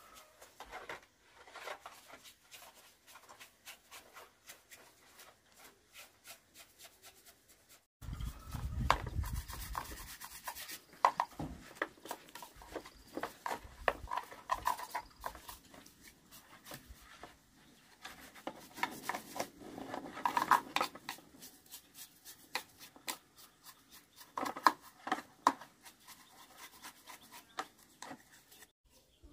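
Small stiff brush scrubbing the plastic housing of an old chainsaw in quick, rasping strokes that come in bursts. The first several seconds are quieter rubbing and handling of parts.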